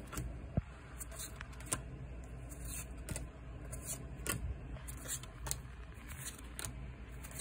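Pokémon trading cards being flipped through by hand: a dozen or so short, crisp card flicks and slides, irregularly spaced, as each card is pulled off the stack.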